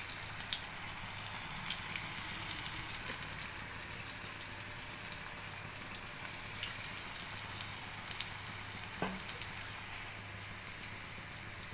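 Batter-coated green beans deep-frying in hot oil in a steel kadai: a steady sizzle with scattered small crackles and pops.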